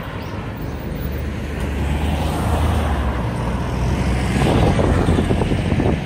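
A motor vehicle's engine running as it passes close by, a steady low hum under a swelling road noise. In the second half, wind buffets the microphone.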